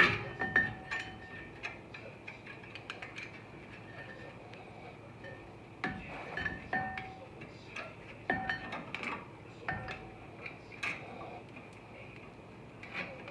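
Metal tools and parts clinking and ringing in irregular sharp clinks, each with a short metallic ring. The loudest clink comes right at the start.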